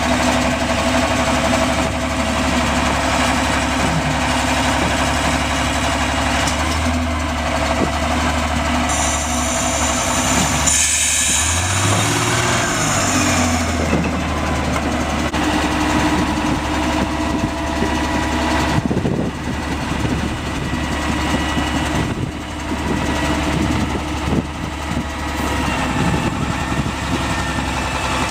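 Vintage Plymouth narrow-gauge industrial locomotive's engine running steadily. About eleven seconds in it revs up briefly and settles back, with a short high hiss at the same time.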